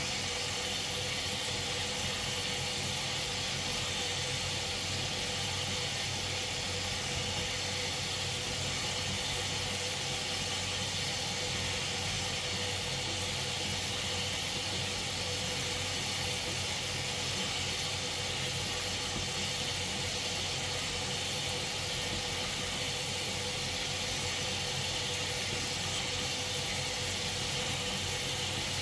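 Tap water running steadily into a stainless steel sink and flowing over its bottom toward the drain, an even rushing noise with a faint steady hum underneath.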